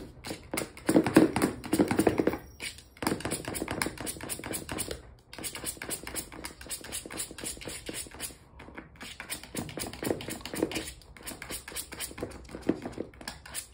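Small dog rummaging with its head inside a wastebasket, after a toy: a rapid stream of rustling and tapping against the bin, broken by a few short pauses.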